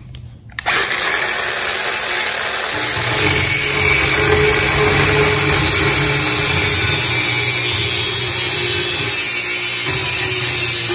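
Cordless angle grinder with a cut-off wheel, switched on just under a second in and then running steadily as the wheel cuts through a steel bracket.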